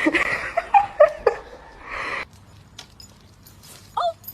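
A dog making short whining sounds over breathy noise for about two seconds, then a brief higher call near the end.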